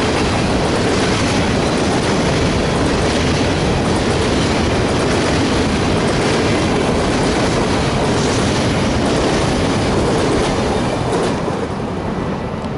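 Freight train of hopper cars rolling past, with steady wheel-on-rail noise that eases a little near the end.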